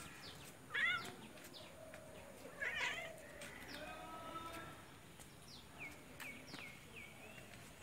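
A cat meowing twice: short meows about a second in and again near the three-second mark.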